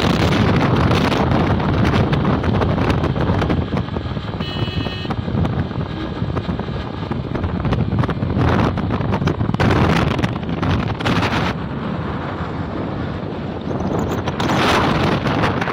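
Wind buffeting the microphone of a Hero XPulse 200 4V motorcycle cruising at about 65 km/h. The gusts rise and fall over the steady drone of its single-cylinder engine and tyres. A brief high-pitched tone sounds about four and a half seconds in.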